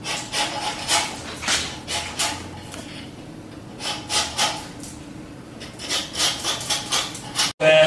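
Hand tool shaving and scraping a block of clear ice in quick strokes, about three a second, in three runs with short pauses between them.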